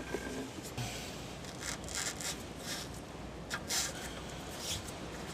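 Faint, irregular scraping and rubbing as the removed rear shock absorber and its mounting hardware are handled, in a few short scuffs.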